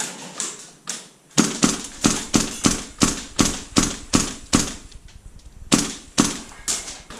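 Airsoft gunfire: a fast string of sharp single shots, about three a second, then a short pause and a few more shots near the end.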